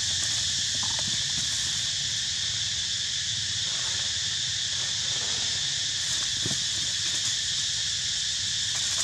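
Steady, high-pitched insect chorus, an unbroken shrill drone, with a few faint soft knocks underneath.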